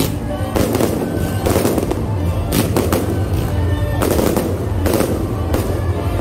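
Aerial fireworks bursting overhead: a quick series of loud bangs, one about every half second to second. Music plays steadily underneath.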